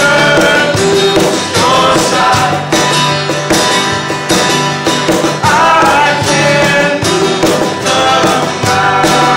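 Acoustic guitars strummed with a cajón beneath, and several voices singing in harmony.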